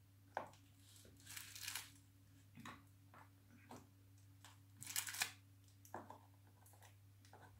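Faint crinkling and rustling of a clear plastic biscuit tray as ladyfinger biscuits are taken out and laid into a plastic container, in short scattered rustles, over a faint steady hum.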